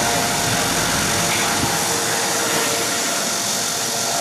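AS365 Dauphin helicopter hovering low at close range: a steady turbine whine over a continuous rushing rotor noise.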